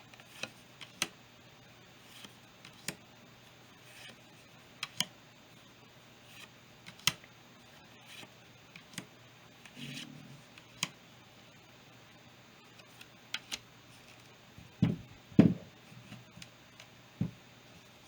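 Yu-Gi-Oh trading cards being handled: scattered light clicks and taps, roughly one a second, with a brief rustle partway through and a few louder knocks near the end.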